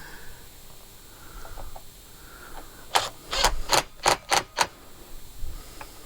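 A quick run of about six sharp clicks and knocks over a second and a half, from hard plastic and metal parts of a brushcutter being handled on a work table.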